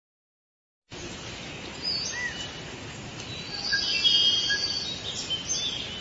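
Forest ambience: birds chirping and whistling over a steady hiss, starting about a second in after silence and tapering off near the end.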